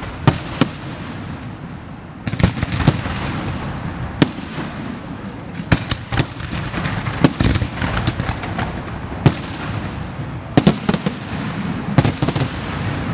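Large aerial fireworks display: shells bursting in sharp bangs, several in quick succession in places, over a continuous crackling.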